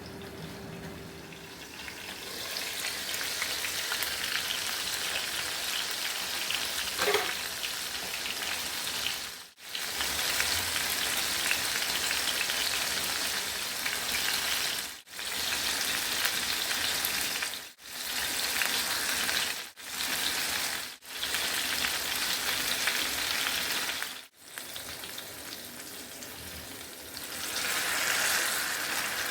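Food sizzling in a frying pan: a steady hiss of frying that drops out abruptly for a moment about six times.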